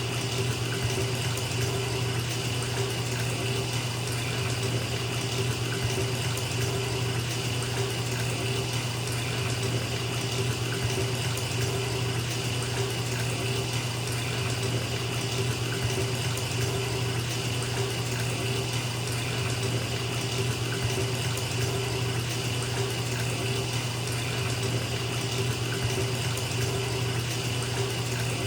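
Bathtub tap running steadily into a filling tub, a continuous rush of water with a deep low rumble beneath it.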